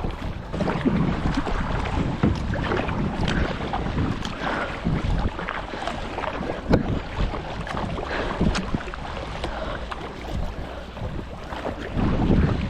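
Kayak paddles dipping and splashing in the water in irregular strokes, with occasional knocks, over a steady rush of wind on the microphone.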